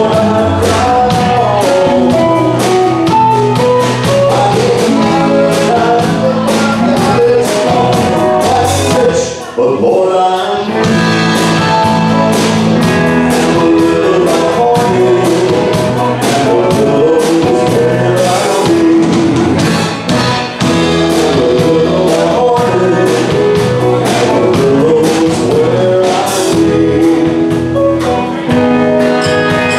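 Live country band music for dancing, with singing over guitars and a steady beat. The music drops back briefly about nine and a half seconds in, then carries on.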